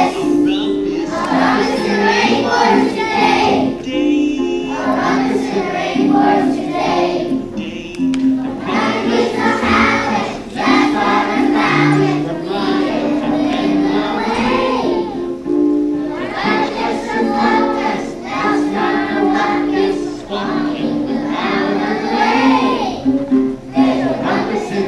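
A children's choir singing a song with musical accompaniment.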